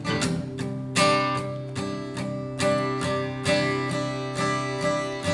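Acoustic guitar strumming chords in a steady rhythm, with no vocals.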